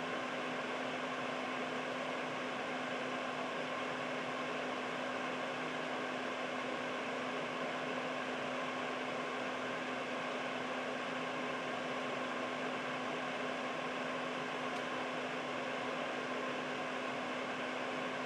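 Air purifier fan running steadily: an even rush of air with a steady low hum under it.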